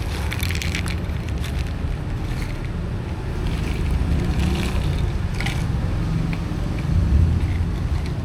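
A steady low rumble with short crunching and scraping sounds on top, clustered in the first second and again about five seconds in.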